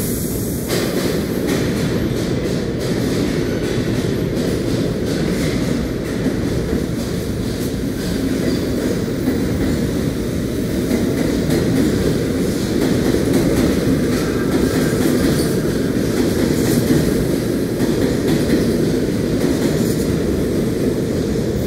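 New York City subway No. 6 local, a train of R142A cars, pulling out of an underground station and picking up speed alongside the platform. It makes a steady rumble of wheels and traction motors with rail-joint clickety-clack.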